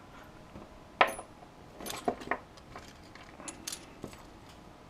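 Small brass scrap pieces clinking and rattling as they are handled and set down: one sharp clink about a second in, then several smaller clinks.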